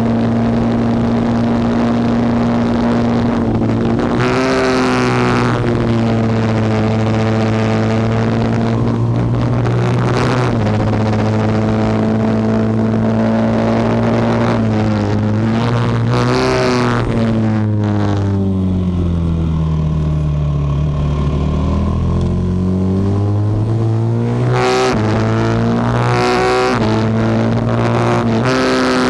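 Norton Manx single-cylinder racing motorcycle engine pulling hard at high revs, with short breaks in the note at gear changes. About two-thirds through, the revs fall away and then climb again. Wind rushes over the microphone in gusts.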